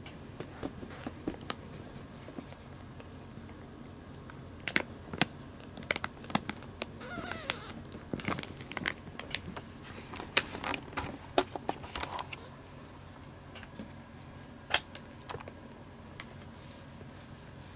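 Close handling sounds while newborn kittens are bottle-fed: tissue paper crinkling, with scattered small clicks and taps. About seven seconds in comes one brief high, squeaky gliding sound.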